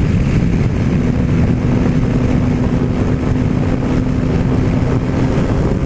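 Yamaha MT-09 Tracer's inline three-cylinder engine running at highway speed, its note holding steady, under heavy wind rush on the microphone.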